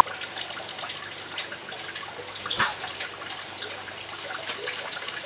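Water trickling and splashing steadily from a tiered stacked-pot garden fountain, with one short knock about two and a half seconds in.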